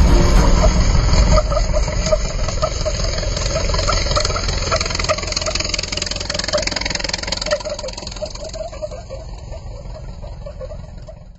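Car engine and road and wind noise while driving at highway speed, fading gradually and then cutting off at the end.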